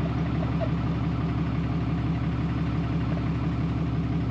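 Pickup truck's engine running steadily, heard from inside the cab while driving, as an even low hum.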